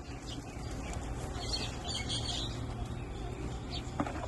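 Birds chirping in short scattered calls over a steady low hum, with a single click near the end.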